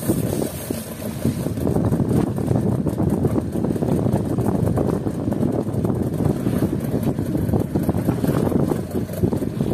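A small fishing boat's motor running on a rough sea, with wind buffeting the microphone in an uneven rumble.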